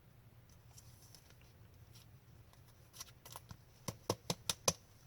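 Hockey trading cards being handled and flipped through: quiet at first, then a quick run of about seven or eight sharp card clicks in the second half.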